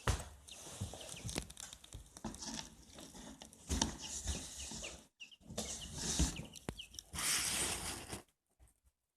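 Newly hatched chicks peeping in short high chirps over rustling and scratching, with a few sharp knocks. The sound breaks off briefly about five seconds in and stops abruptly near the end.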